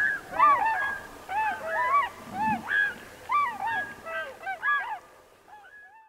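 A flock of geese honking in flight, many calls overlapping, fading out in the last second.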